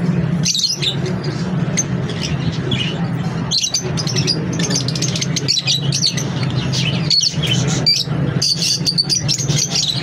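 A flock of caged peach-faced lovebirds chirping, with many short, sharp chirps overlapping and coming thicker near the end, over a steady low hum.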